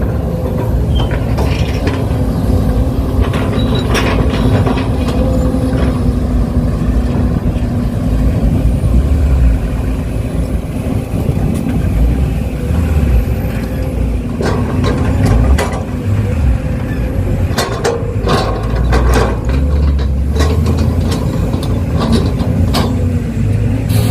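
Excavator at work: a steady engine and hydraulic drone with a held hum, joined by a run of sharp clanks and knocks of the bucket and arm about halfway through.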